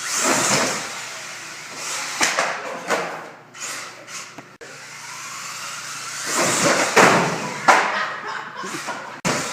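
Traxxas 1/16-scale rally RC car being driven hard: surges of motor and tyre noise, with several sharp thuds from landings or crashes.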